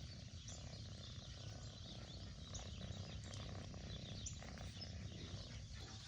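Faint outdoor background: a steady high hiss over a low rumble, with a few light ticks scattered through it.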